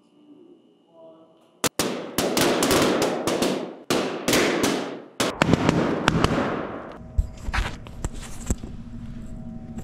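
A line of rubber balloons popping one after another, burst by a 2,000-watt laser beam: a rapid string of sharp, echoing bangs starting about two seconds in and lasting about five seconds. After the pops stop, a steady hum remains.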